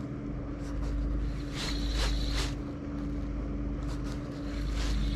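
Steady hum of a boat motor running, under a low wind rumble. About two seconds in, a short higher whirr lasts under a second.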